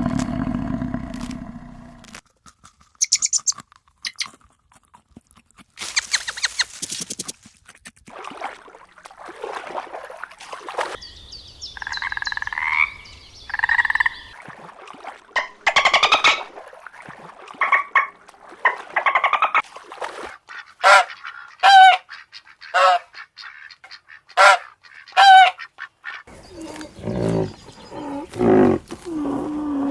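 Assorted animal calls, one after another. The loudest are five short, pitched calls in quick succession past the middle.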